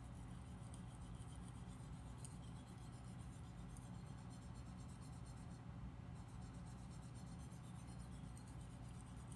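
Faint, repeated scratching of a steel knife edge being stroked across a small, fine 20,000-grit Japanese water stone held in the hand, over a steady low hum.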